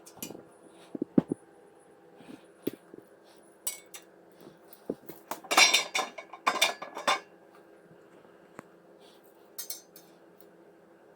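Steel parts of a PC case holder bracket clinking and knocking as they are handled, in scattered single knocks with a louder spell of metallic rattling about halfway through.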